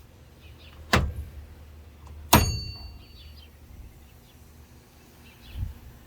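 Two sharp knocks, the second a metallic clank that rings briefly, followed near the end by a softer low thud.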